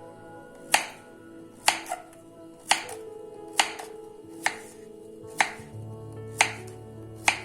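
Soft music with held notes and a sharp knock or snap about once a second, evenly spaced.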